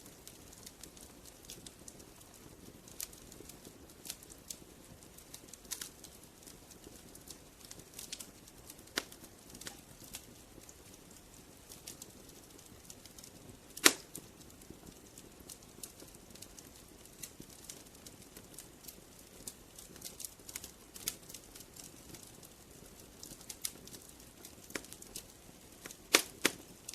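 Wood fire crackling, with scattered sharp pops and snaps over a low hiss of burning; one loud pop about halfway through and a quick cluster of loud pops near the end.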